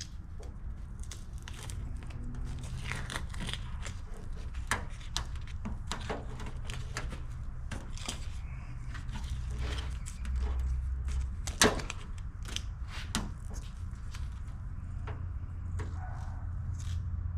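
An old car wiring harness being worked on by hand: scattered clicks, crackles and rustles as wires, tape and plastic sleeving are pulled apart, with one sharp click a little before halfway, over a steady low hum.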